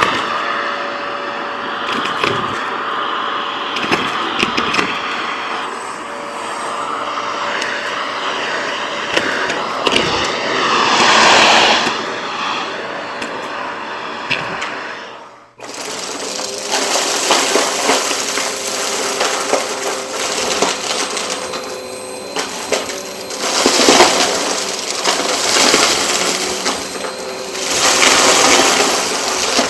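Vacuum cleaner running steadily, with crackling and rattling of debris being sucked up. About halfway through the sound fades out abruptly and comes straight back with a slightly different tone.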